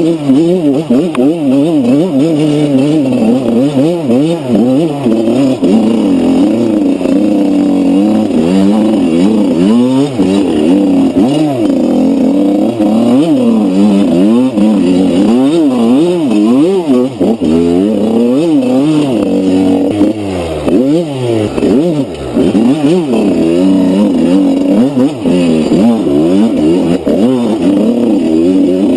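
Enduro dirt bike engine being ridden off-road, revving up and down continuously, its pitch rising and falling every second or so with the throttle.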